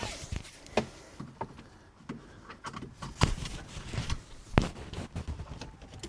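Seat belt drawn across and buckled in a car's cabin: a run of separate sharp clicks and light knocks, the loudest a little after three seconds and about four and a half seconds in.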